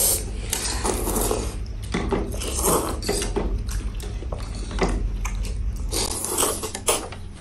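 Two people eating noodles with chopsticks: slurping and chewing in quick, irregular bursts, with chopsticks clicking against the bowls.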